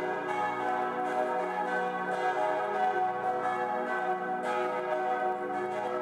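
Several church tower bells ringing together in a full peal, their strokes overlapping and blending into one continuous, sustained ring.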